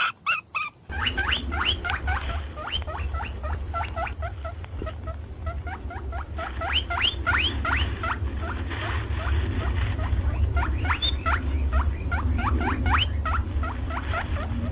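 Small animals squeaking: many short, rising high-pitched squeaks in quick succession, starting about a second in, over a steady low hum.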